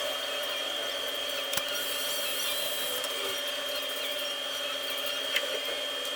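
Steady whine of a small electric tool motor, with a couple of light clicks about one and a half seconds and five seconds in.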